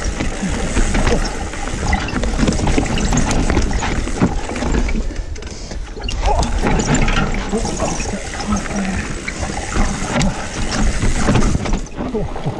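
Mountain bike rolling down a wet dirt trail: a steady rush of tyre noise over dirt and roots, with frequent short knocks and rattles from the bike.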